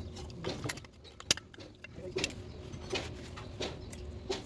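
Scattered light metallic clinks and knocks from workshop tools and parts, with one sharp click about a second in, over a low steady hum.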